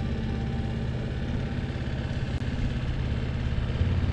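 Small boat's outboard motor running steadily, pushing the boat along at low speed.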